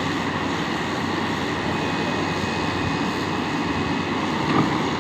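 Heavy diesel mining machinery running steadily, a dense, even engine noise with a brief swell near the end.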